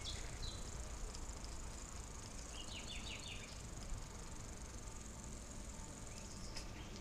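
Steady high-pitched chirring of insects, with a quick run of short high chirps about three seconds in and a low rumble underneath.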